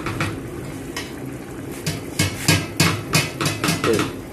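Spoon clinking and scraping against a metal cooking pot, with a quick run of knocks at about three or four a second in the second half.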